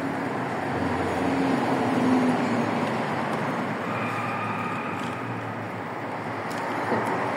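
Steady road traffic noise, an even rumble and hiss of passing vehicles.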